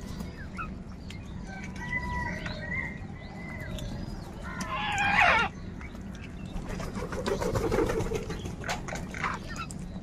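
House crows calling over a feeding flock, with one loud, harsh caw about five seconds in and scattered shorter calls and sharp clicks later on.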